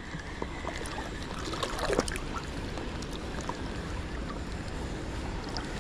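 Sea water lapping and sloshing around a paddleboard, a steady noisy wash with a few faint knocks, the clearest about two seconds in.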